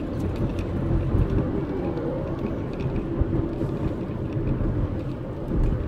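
Steady in-cabin road noise of a moving diesel car: a low rumble of tyres and engine, with a few faint ticks or rattles.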